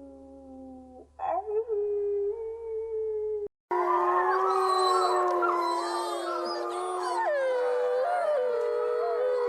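A single dog howling in long held notes, then an abrupt cut a little over three seconds in to many dogs howling together, their overlapping howls rising and falling in pitch.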